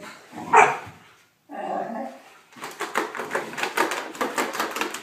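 Dogs barking and vocalising during rough play. There is one loud sharp bark about half a second in, then after a brief gap a dense run of short, quick sounds.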